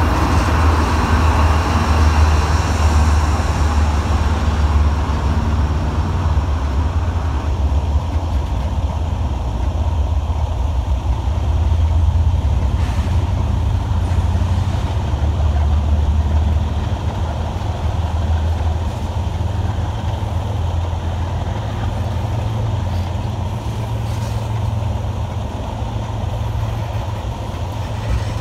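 A diesel freight locomotive running as it passes, its engine sound fading over the first few seconds, then a steady rumble of empty coal hopper cars rolling past on the rails.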